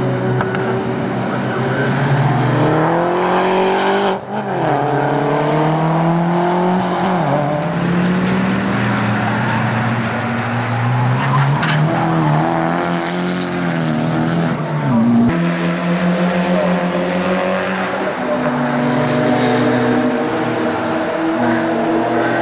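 Track-prepared race cars' engines accelerating hard through the gears and passing, the engine pitch climbing and then dropping at each gear change. About fifteen seconds in the sound switches abruptly to a different car's engine.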